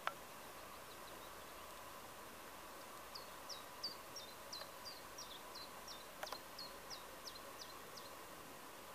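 A bird singing a run of short, high, falling notes, about three a second, that starts about three seconds in and lasts about five seconds. A sharp click right at the start and another about six seconds in.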